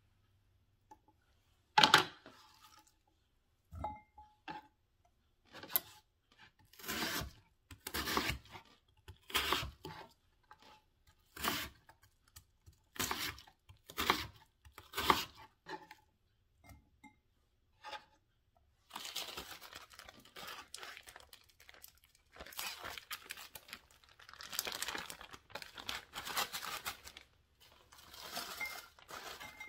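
Chef's knife chopping a raw onion on a wooden cutting board, one cut about every second, the first a sharp knock. Later comes a longer stretch of scraping and rustling as the chopped onion is cleared off the board.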